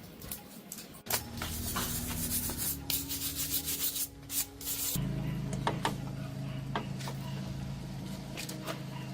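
A power tool sanding or grinding, giving a rasping, scraping sound over a steady motor hum. About five seconds in the rasping eases and a steadier, deeper hum carries on.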